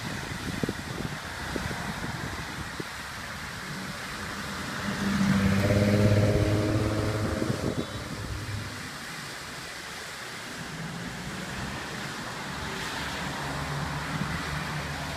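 Cars passing on a road, the loudest going by about five to eight seconds in with an engine hum that swells and fades, over a steady hiss and wind buffeting the microphone.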